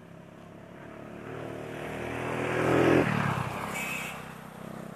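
A motor vehicle's engine passing close by: it grows louder for about three seconds, peaks, then fades quickly as it moves away.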